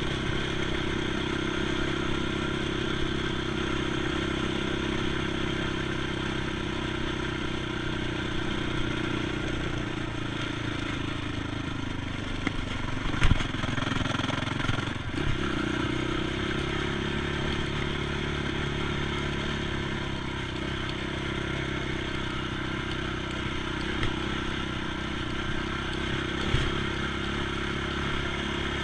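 ATV engine running at a steady pace while riding. About halfway through the engine note drops, then picks back up, with a sharp knock as it drops.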